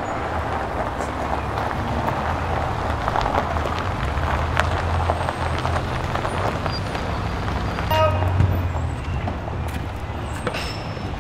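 A Renault Espace minivan pulling up slowly over gravel, with its engine humming low and its tyres crunching on the stones. A brief squeak comes about eight seconds in, as the van comes to a stop.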